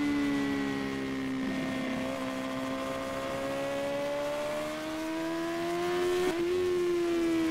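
Sportbike engine running at high revs under way, its note sinking a little and then climbing steadily for several seconds, with a brief break about six seconds in.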